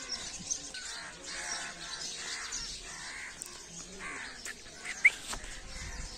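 Crows cawing over and over, with a sharp click about five seconds in.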